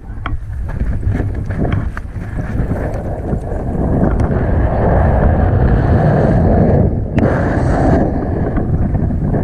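Wind buffeting the microphone of a pole-mounted camera on a tandem paraglider during launch and into flight. The rush grows louder about four seconds in, once the glider is airborne, and drops briefly near seven seconds. There are a few light knocks in the first couple of seconds.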